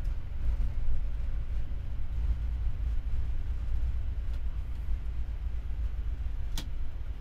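Boeing 787-9 decelerating on the runway during its landing rollout, heard from the cockpit: a steady deep rumble of the airliner rolling and braking. A sharp click about six and a half seconds in, and a fainter one near four seconds.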